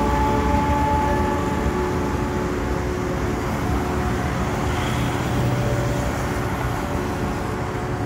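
Road traffic: cars passing along the road, a continuous rumble of engines and tyres, loudest as a car goes by near the start.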